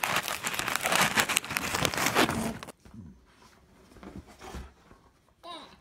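Clear plastic wrapper of a package of Peeps marshmallow candies crinkling as it is handled, for about two and a half seconds, then cutting off abruptly. Faint, quiet sounds follow.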